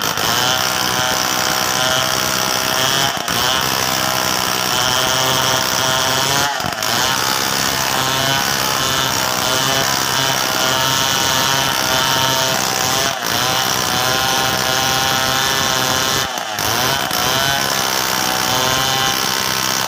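Two-stroke chainsaw at full throttle ripping along the length of a mahogany log, its engine pitch wavering under load. The sound dips briefly about four times.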